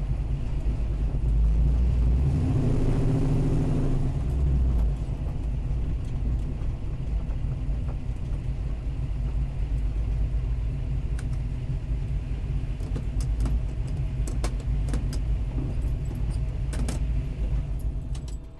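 Car engine running with a deep, steady rumble, louder for a couple of seconds about two seconds in, with scattered light clicks and rattles over it later on; the sound cuts away at the very end.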